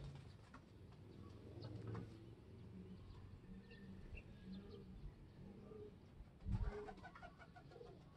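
Racing pigeons cooing faintly in short, low, repeated phrases, with a brief thump about six and a half seconds in.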